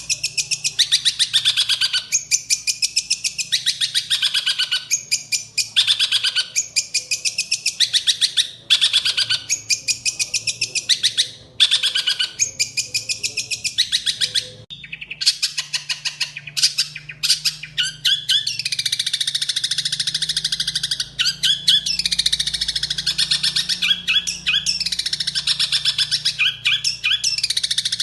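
Songbird singing high-pitched song: short trilled phrases repeated about once a second, then from about halfway a continuous, rapid, varied warbling.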